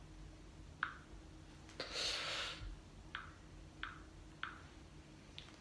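A few light, sharp clicks, about five spread unevenly, in a quiet small room, with a brief rustling hiss about two seconds in.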